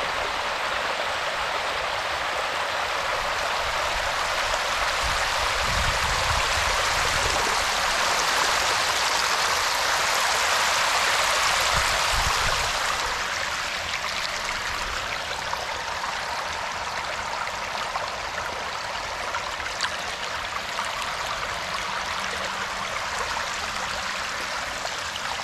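Water running and splashing in a steady rush, growing louder for a few seconds and easing off about halfway through.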